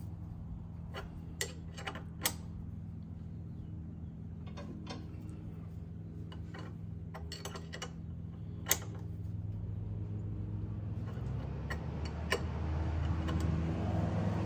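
Scattered, irregular metallic clicks and clinks of hand-tool work on the front of the engine, over a steady low hum that gets louder in the last few seconds.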